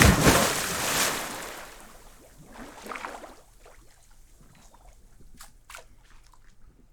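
A 7.62x39 rifle shot with a long fading rumble, a second loud blast about a second in, then faint scattered clicks and knocks.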